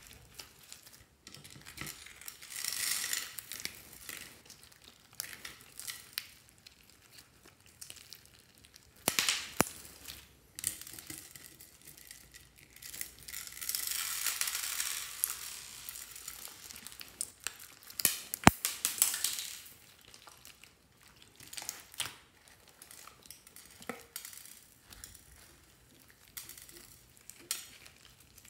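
Hands squishing and kneading slime full of beads and clay, crackling and crunching in several bursts of a few seconds each, with one sharp click about two-thirds of the way through.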